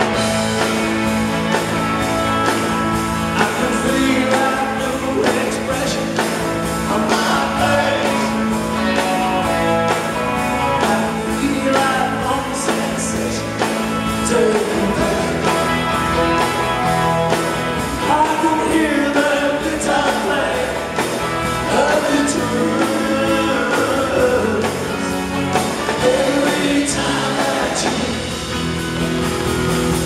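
Live rock band playing, with an electric twelve-string guitar and singing.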